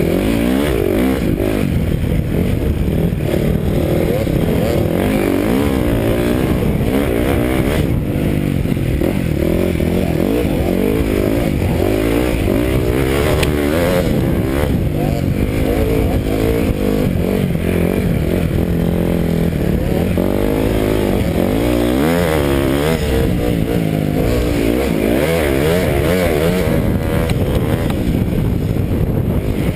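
Dirt bike engine running while riding, its pitch climbing and dropping again and again as the throttle is opened and closed.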